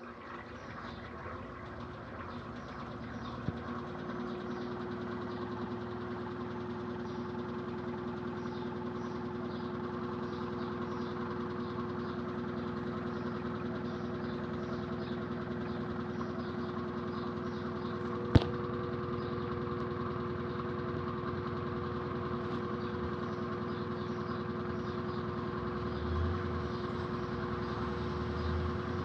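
Electrolux LED14 top-load washing machine running: a steady motor hum that builds over the first few seconds and then holds. A sharp click comes about two-thirds of the way through, and there are a couple of low thumps near the end.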